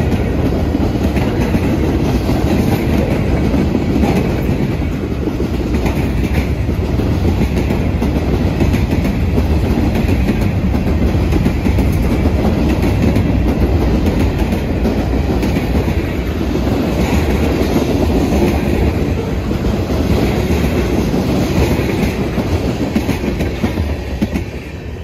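Mixed manifest freight train's cars rolling past at speed: a steady rush of steel wheels on rail with clickety-clack over the rail joints. The noise falls away near the end.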